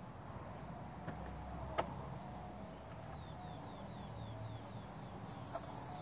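A few light metal clicks, one sharper about two seconds in, as a hex nut and lock washer are threaded by hand onto a caster bolt on a steel creeper frame. Faint high chirping repeats in the background, with a quick run of short falling chirps midway.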